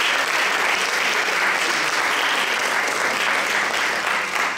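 Audience applauding, a steady, dense clapping that is louder than the talk around it.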